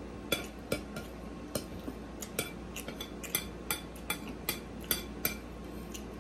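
Metal fork clinking and scraping against a plate while cutting into a fried pork chop, a run of sharp clinks about three a second.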